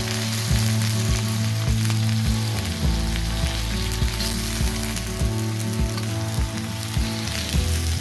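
Raw chicken meat and bones sizzling as they hit hot oil and fried garlic in a stainless steel wok, a steady frying hiss.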